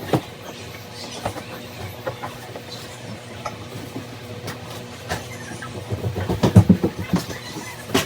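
Irregular clicks and knocks of objects being handled, with a quick run of louder low thumps about six and a half seconds in.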